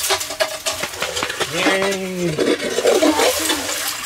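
Hand-cranked ice auger scraping and crunching as its blades bore through lake ice, in a rapid run of scratchy strokes. A voice cheers "yay" about two seconds in.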